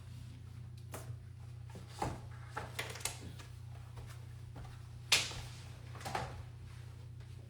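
A few light knocks and clacks from objects being handled and set down, the sharpest about five seconds in, over a steady low hum.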